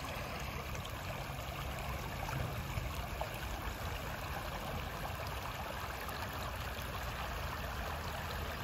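Creek water flowing steadily over a streambed, a constant rushing.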